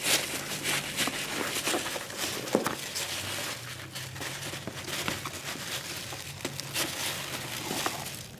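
Hands rummaging through foam packing peanuts in a cardboard box: a continuous rustling and crunching with many small clicks.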